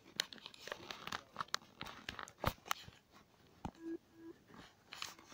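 Korg Kaossilator app playing its 8bitReverse sound from the touch pad: scattered short crunchy clicks, then two brief low beeps about four seconds in.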